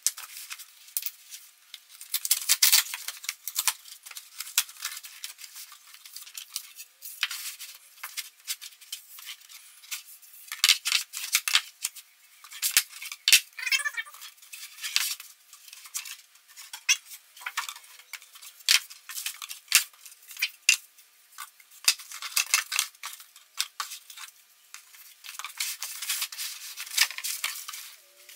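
A cardboard flat-pack box being opened and its black laminated particleboard panels slid out and laid down: irregular scraping and rustling of cardboard against board, with light taps and knocks.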